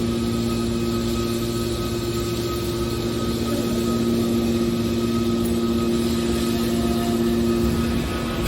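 Hydraulic metal scrap baler running, a steady machine hum with several fixed tones.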